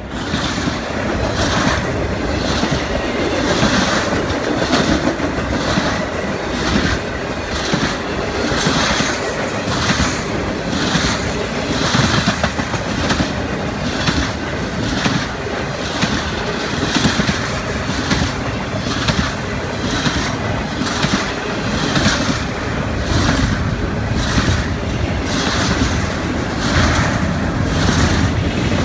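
Intermodal freight train cars, highway trailers on flatcars and then double-stack container cars, rolling past. A steady rumble with a rhythmic clickety-clack of wheels passing over rail joints.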